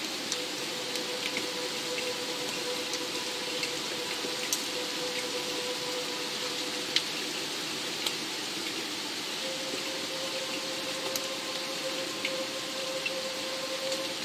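Steady rain hiss with single drops ticking here and there, under a held low note from ambient music.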